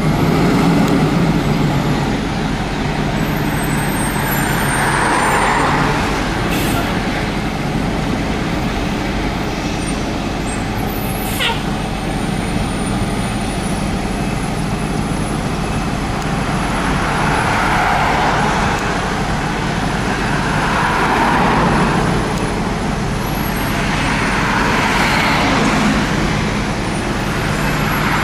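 Fire engine's diesel engine running at low speed as the truck turns and backs into the station bay, with cars passing on the road several times. There is one short sharp hiss about halfway through.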